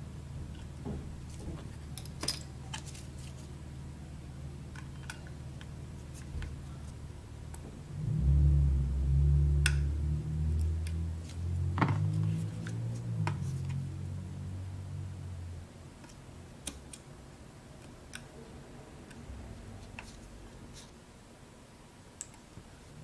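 Small clicks and taps of a precision screwdriver and small parts against the iPad's metal frame during screen repair work. From about eight seconds in, a loud low rumble of unclear source lasts for about seven seconds.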